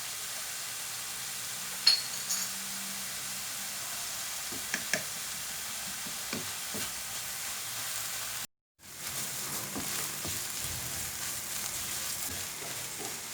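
Sliced onion, pepper and carrot sizzling as they fry in butter and oil in a frying pan, stirred now and then, with a sharp tap about two seconds in. The sizzling drops out completely for a split second about two-thirds of the way through, then carries on.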